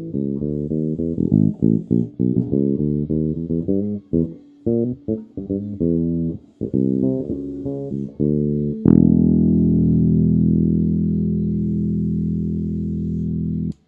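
FGN KNJB100MBAH ash-body, maple-neck jazz-style electric bass playing a quick riff of short plucked notes, then striking a final note that rings out for about five seconds before it is cut off.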